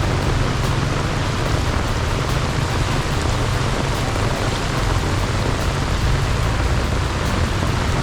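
Heavy rain pouring down in a steady, dense hiss, with a low rumble underneath.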